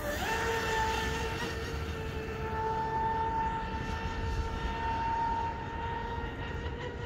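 SBY Aeromarine Titan 40 RC speedboat running flat out across the water, its motor giving a steady high whine. The whine climbs briefly just after the start and then holds its pitch.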